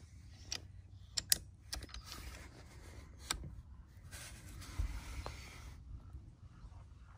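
Handling noise on the rifle and scope: about five sharp clicks in the first few seconds, then a stretch of rustling.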